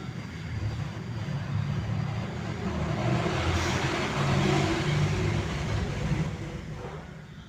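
A motor vehicle passing by, its noise growing louder to a peak about halfway through and then fading away.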